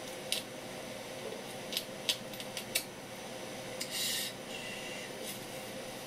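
Kitchen knife working a red gurnard fillet on a wooden cutting board: a few light clicks of the blade and a short scrape of the knife through the flesh about four seconds in, over a steady background hum.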